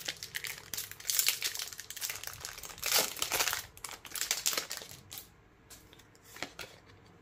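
Foil wrapper of a Pokémon Trading Card Game booster pack crinkling as it is opened and pulled apart by hand. The crinkling is loudest about one and three seconds in and dies down after about five seconds, leaving a few light clicks.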